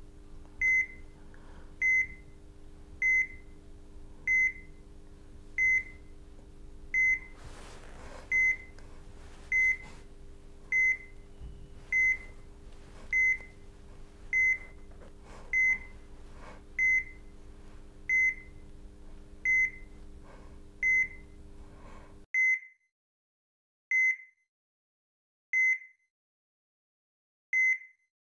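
Hospital heart monitor beeping, one short high beep a little over a second apart, over a steady low hum of room equipment. About 22 seconds in the hum cuts off and the beeps carry on alone, coming further and further apart.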